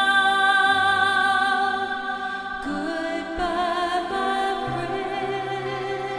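Background music with a sung melody of long held notes, becoming softer a little over two seconds in.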